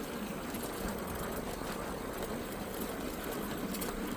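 Electric bike being ridden at a steady pace: a continuous motor whir mixed with even rolling noise, with no sudden events.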